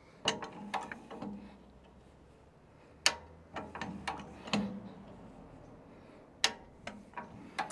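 A high-lift jack and its steel handle being worked against a tyre sidewall while breaking the bead: a handful of sharp, irregular metal clicks and clunks.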